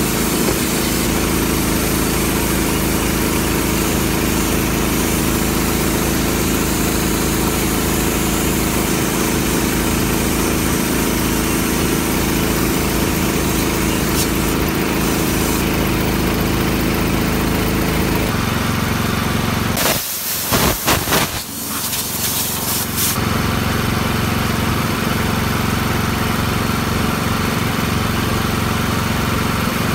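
Small engine running steadily, with an air tool grinding rust out of the grooves of steel forklift split rims. About two-thirds of the way through the engine's pitch steps down and a short loud clatter breaks in.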